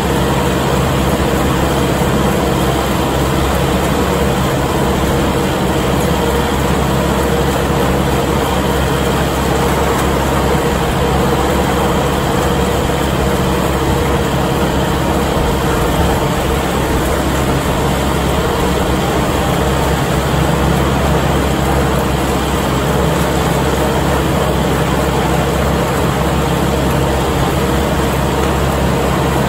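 Kubota MX5200 tractor's four-cylinder diesel engine running steadily under load, driving a New Holland haybine (mower-conditioner) through standing hay, heard close up from the tractor seat.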